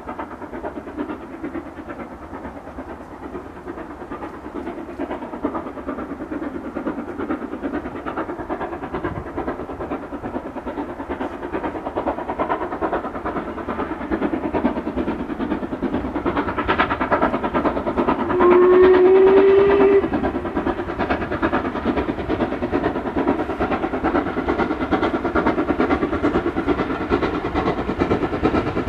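LMS Black Five steam locomotive working hard with a train, its exhaust beats growing steadily louder as it approaches. About two-thirds of the way through it sounds one steady whistle blast of about a second and a half, the loudest sound here.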